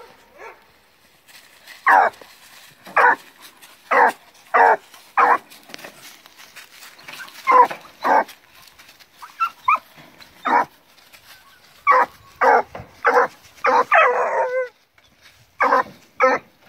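Blue Gascony griffon cross puppies barking in excitement at a caged rabbit, their first sight of game: short, sharp, high puppy barks about once a second with a few pauses, and one longer wavering bay about fourteen seconds in.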